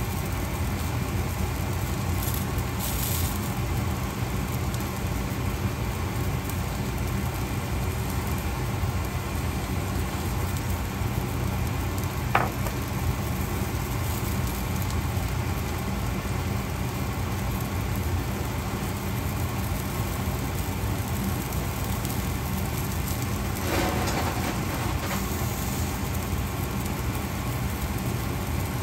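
Green beans and onions sizzling as they fry in a pan, over a steady low hum. There is a single sharp click about twelve seconds in.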